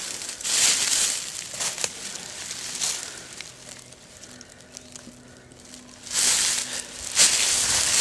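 Dry forest leaf litter and twigs crunching and rustling underfoot, in a few louder bursts about half a second in, around six seconds and near the end.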